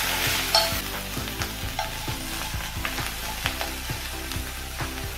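Shiitake mushrooms sizzling in oil in a frying pan while being stir-fried, the utensil clicking and scraping against the pan every so often.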